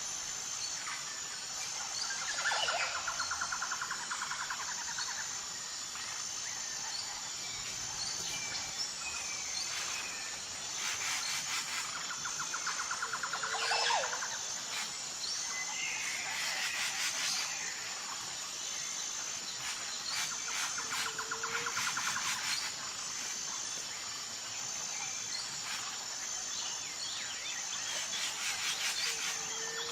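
Morning birdsong: several birds calling and chirping, with a trilled call coming back about every nine seconds. Underneath runs a steady high, pulsing buzz of insects.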